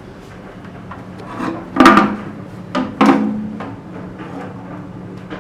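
Metal clattering from work on an RB25DET engine block and its sump: a sharp clank about two seconds in, then two more knocks about a second later, the last one ringing briefly, over a steady low hum.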